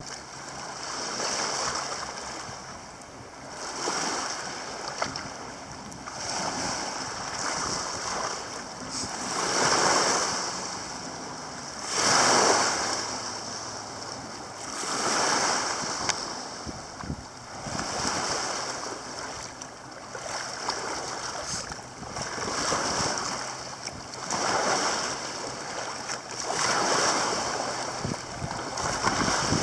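Small waves lapping at the lakeshore, the water noise swelling and fading every two to three seconds, with some wind.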